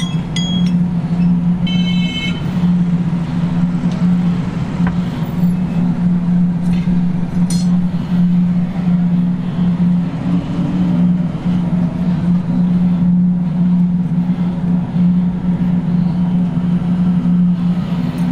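Steady low hum of a running motor, unbroken throughout, with a few faint clicks and a brief high-pitched tone about two seconds in.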